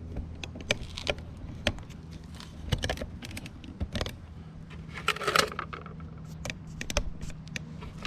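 Handling noises from a rock and a thin plastic container being set down and adjusted: scattered light clicks and knocks, with a brief plastic scraping rustle about five seconds in.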